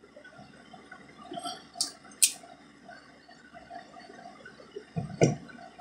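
Crimping tool being worked on a large terminal lug on a battery cable to tighten a crimp that was still loose: two sharp clicks near the middle and a heavier knock near the end.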